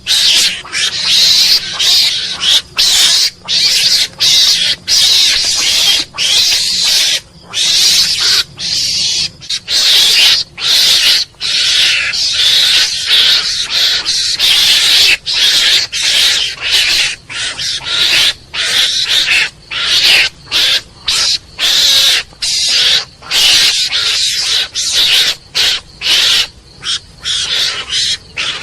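Mongoose calling: a long series of short, harsh, breathy bursts, one after another in quick, irregular succession with brief gaps between them.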